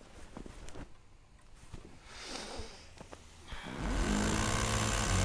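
Bedding rustling as someone sits up in bed. Then, nearly four seconds in, an electric rotary hammer starts up and drills steadily and loudly, its pitch rising briefly as it spins up.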